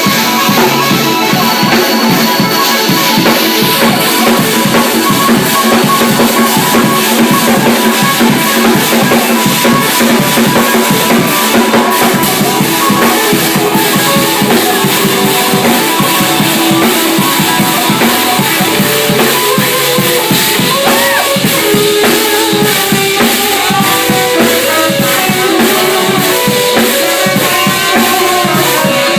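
Band music with a drum kit playing a busy beat under pitched instrument notes.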